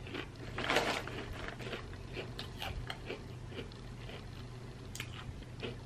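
A person chewing crisp snack chips: a run of small scattered crunches, with one louder crunch about a second in.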